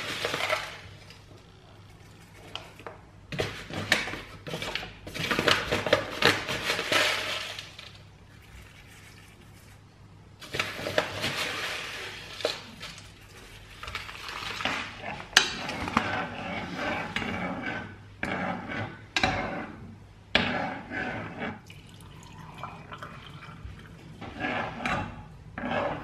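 Metal spoon scooping rolled oats from a plastic bag into a saucepan and stirring them, with irregular scrapes, rustles and clinks of the spoon against the pan.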